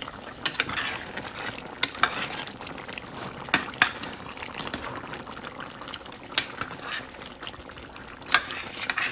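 Pot of curry chicken simmering on low heat, the thick sauce bubbling over a steady low hiss with sharp, irregular pops.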